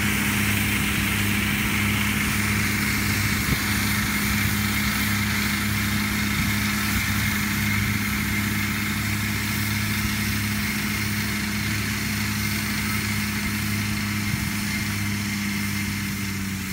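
New Holland T6.120 tractor's diesel engine running steadily while it drives an Alpego TT97 flail mulcher through grass, the engine's drone mixed with the whir of the spinning flail rotor. The sound slowly fades as the tractor moves away.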